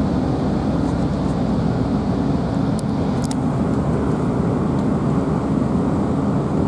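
Cabin noise inside a moving GWR Class 165 diesel multiple unit: the steady low rumble of its underfloor diesel engines and its wheels on the rails. Two faint clicks come about three seconds in.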